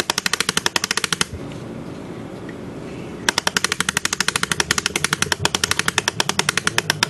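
Rapid clicking of an Ollie mainspring winder's ratchet as its crank is turned, winding a Schatz 400-day clock's mainspring tight. One fast run of clicks stops about a second in, and after a pause of about two seconds a second run starts.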